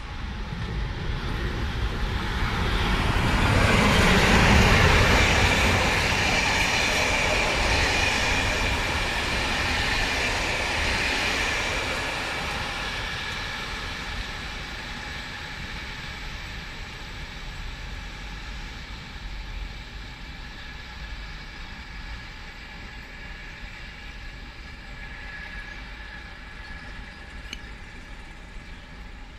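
Škoda electric locomotive and its passenger coaches passing through without stopping, the wheels rumbling on the rails with a thin high squeal. It is loudest about four to five seconds in, then fades slowly as the train runs away into the distance.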